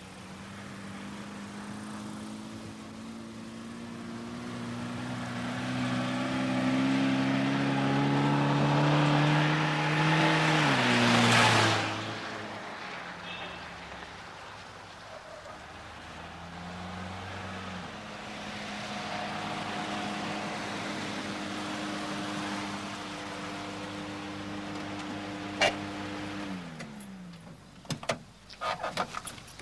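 Car engine running as the car drives along: the engine note climbs and grows louder, then drops sharply in pitch about eleven seconds in as the car passes. A steadier engine note follows and falls away near the end as the car slows to a stop, then comes a run of sharp clicks and knocks.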